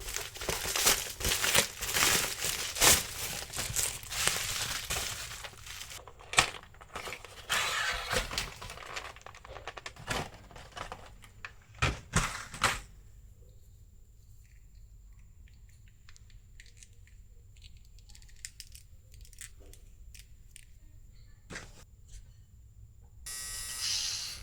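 Crinkling and rustling of small parts being handled, with many sharp clicks. After about six seconds it thins to scattered clicks, then goes quiet apart from a faint steady high whine and a few light ticks, with a short burst of rustling near the end.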